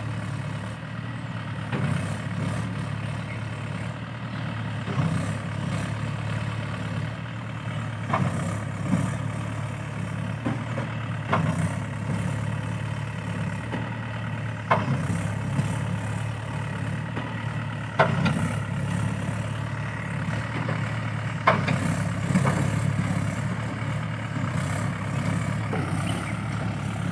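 A heavy engine idling steadily throughout. Several short, sharp high-pitched chirps come every few seconds, the loudest two near the end.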